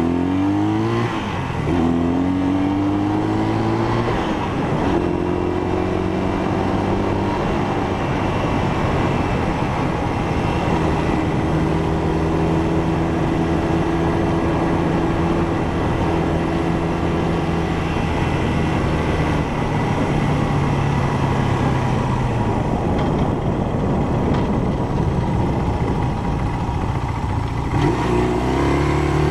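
1971 Honda CL175's parallel-twin engine running, its pitch climbing and dropping as it is revved in the first couple of seconds and again near the end, and holding fairly steady in between.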